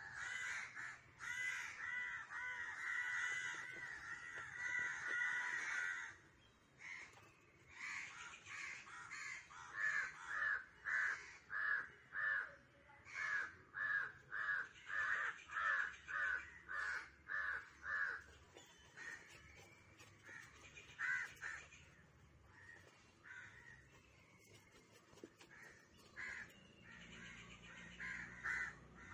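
Crows cawing: a dense stretch of overlapping caws for about six seconds, then after a short lull a steady run of single caws, about two a second, for some eight seconds, then scattered caws.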